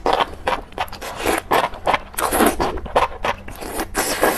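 Enoki mushrooms in chili oil being slurped and eaten, a rapid, irregular string of loud, noisy slurps, several a second.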